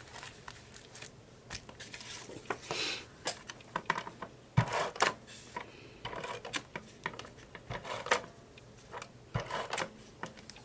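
Paper being handled on a work surface: rustling and sliding sheets with scattered light taps and clicks.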